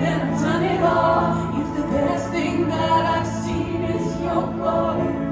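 Worship band playing between sung lines of a praise song, with voices singing along.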